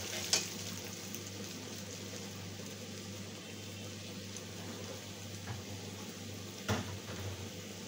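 Potato chunks deep-frying in hot mustard oil in a kadai, a steady sizzle and bubbling, with two short clinks of the metal spoon against the pan, just after the start and near the end.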